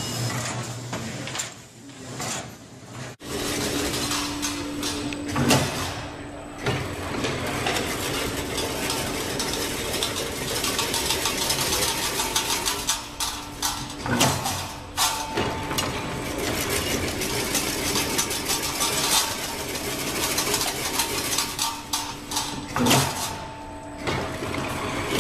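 Chain link fence making machine running: a dense, rapid metallic clatter of its wire-weaving mechanism, with a louder clank about every eight to nine seconds. For the first three seconds or so a steadier machine hum comes from a latex glove coating line, then it cuts off abruptly.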